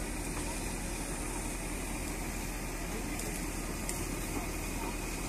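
Fire engine pumping water through a hose: the pump engine runs steadily under a constant rushing hiss of the water jet.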